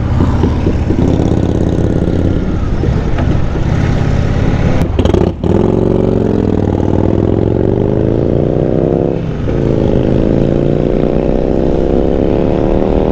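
Indian Chief Vintage motorcycle's air-cooled V-twin engine heard from the rider's seat. It runs steadily for about five seconds, then accelerates with its pitch rising, broken by two short dips about five and nine seconds in, as at gear changes.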